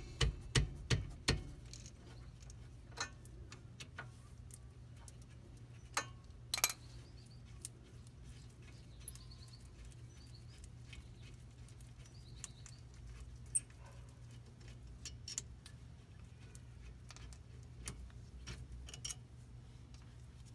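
Sharp metallic clicks and clinks of hand tools, a socket ratchet and loose sockets, at a rear disc brake caliper. A quick run of loud clicks comes in the first second or so, then a few more around six seconds in, and scattered single clicks after that.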